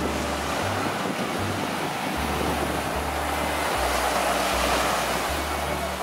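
Small sea waves breaking and washing up a sandy beach, a steady rushing surf that swells about four seconds in.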